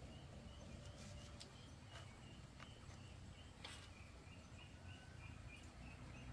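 Faint rural background: short high chirps repeating about three times a second, starting about a second and a half in, over a low steady hum, with a few faint clicks.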